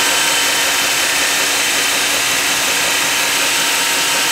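Belt grinder running steadily at low speed on a variable speed drive, a worn 400-grit belt rolling smoothly with an even hiss as it lightly grinds the edge of a Shun cleaver.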